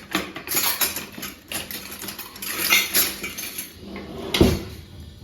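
A spoon scraping and clinking against a dish while slits are scored into raw chicken leg pieces, in a run of short clicks, with one louder knock about four seconds in.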